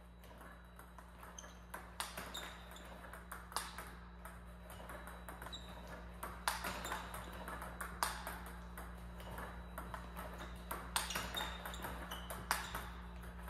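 Table tennis rally: a plastic ball clicking as it bounces on the table and is struck with a rubber paddle, with a few louder hits among many light clicks. A steady low hum runs underneath.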